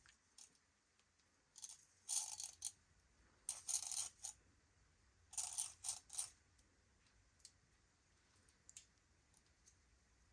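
Small parts of a vintage Action Man Talking Commander's voice unit being handled: three short clusters of faint clicks and scrapes.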